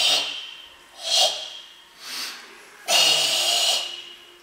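Forceful Sanchin kata breathing: a hissed exhalation trailing off at the start, two short sharp breaths, then a long hard hissing exhalation about three seconds in, the breath driven out under tension in time with the kata's movements.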